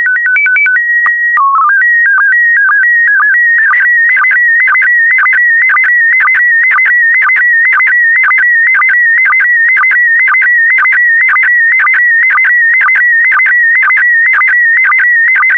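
Slow-scan TV transmission in PD120 mode. It opens with a few short stepped beeps and a held tone that drops to a lower pitch about a second and a half in, followed by a quick run of code tones. Then comes the image scan: a fast-warbling electronic tone around 2 kHz, with a short sync blip about twice a second.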